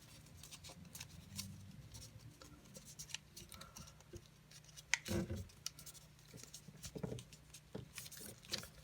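Paper being folded and creased by hand: faint scattered crinkles and rustles, with louder rustles about five and seven seconds in.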